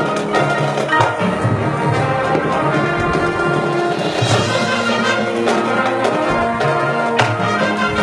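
High school marching band playing its show music: held brass chords over drums and percussion, with a cymbal-like crash about four seconds in and a sharp hit near the end.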